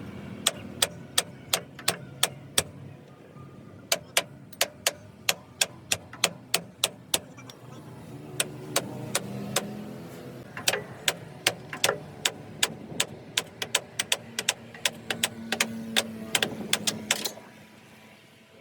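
Hammer blows on steel, struck in quick runs of about three a second with a short pause about three seconds in, over an engine running in the background.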